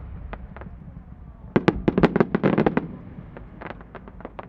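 Aerial fireworks popping overhead in a series of sharp small reports: two pops, then a dense, loud cluster of pops about a second and a half in, with more scattered pops near the end.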